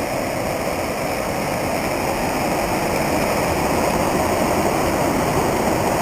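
Watson Falls, a waterfall running full from a week of rain: a steady rush of falling water that grows slightly louder over the stretch.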